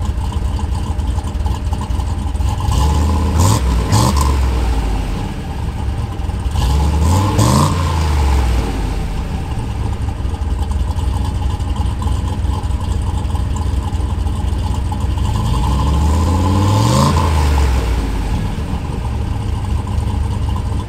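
The engine of a single-turbo, LS-swapped Chevrolet Silverado is revved in place a few times: quick blips up and back down about three to four seconds in, about seven and a half seconds in, and again about seventeen seconds in, idling between them.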